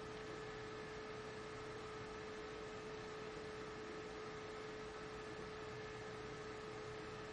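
Steady electrical hum at one pitch, with fainter higher tones above it, over a low hiss: the recording's background noise, with no other sound.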